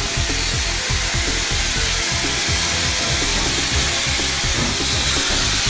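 Steady loud hiss of steam escaping from the open cylinder drain cocks of the Southern Railway S15 class 4-6-0 steam locomotive No. 847.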